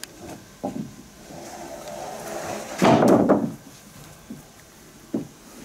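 Sawn wooden boards being unloaded and laid onto a stack: a few light wooden knocks, with one loud clatter of boards about three seconds in.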